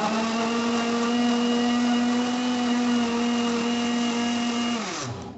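Electric mixer grinder running at a steady pitch while blending mango pieces into puree. About five seconds in it is switched off, and its pitch falls as the motor winds down.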